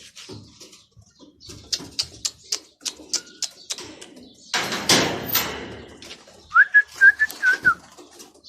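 Domestic pigeons taking off: a patter of wing claps, then a loud rush of flapping wings about five seconds in. Near the end comes a quick run of five or six short, high whistled notes.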